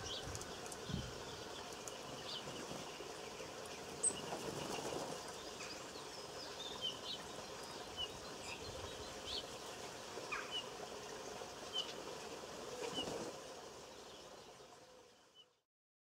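Small garden birds calling: brief high chirps and notes scattered throughout, with an occasional soft flutter of wings. The sound fades out near the end.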